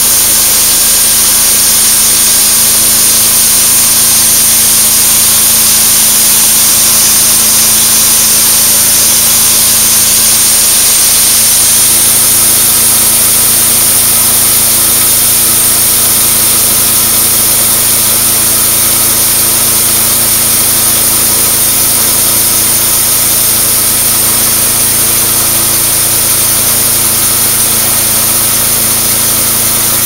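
Homemade band sawmill cutting through a 13-inch oak log: its small single-cylinder gasoline engine runs steadily under load while the band blade saws through the wood with a strong, even hiss.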